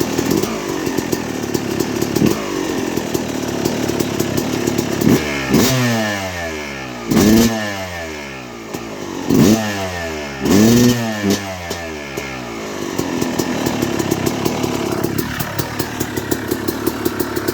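Freshly rebuilt 2006 Yamaha YZ250 two-stroke single-cylinder dirt bike engine running. It is blipped four times between about five and eleven seconds in, each rev rising sharply and falling back, and then it settles to a steady idle.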